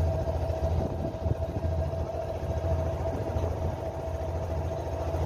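A fishing boat's engine running steadily: a low drone with a faint, steady higher whine above it.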